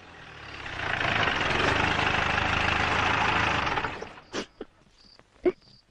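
A motor vehicle's engine swells in, runs steadily for a few seconds and fades out. Two short sharp knocks follow near the end.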